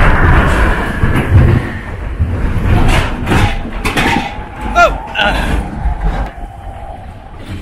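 Matterhorn Bobsleds roller-coaster car running along its track, rumbling and rattling with repeated clacks and knocks, and a brief falling squeal about five seconds in. The rumble eases off toward the end.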